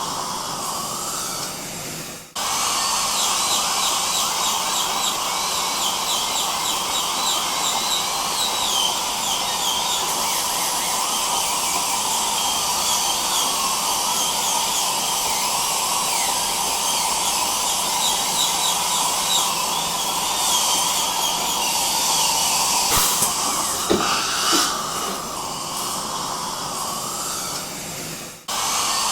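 Dental drill and suction running steadily as a continuous airy hiss, with a high, wavering whine on top. The sound cuts out briefly about two seconds in and again near the end, then starts up again.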